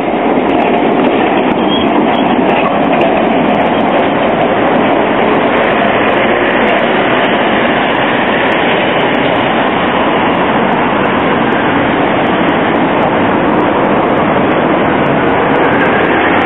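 Tram running on street track, a steady, even running noise that carries on without a break.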